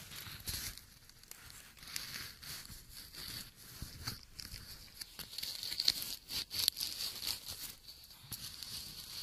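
Close rustling and crackling of leaves and twigs as a handheld camera is pushed through foliage, with scattered small clicks. A faint steady high-pitched hum runs behind it.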